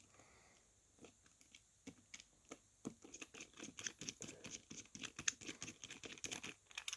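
Faint, irregular light clicks and taps of small tools and phone parts being picked up and handled, sparse at first and coming thick and fast from about three seconds in.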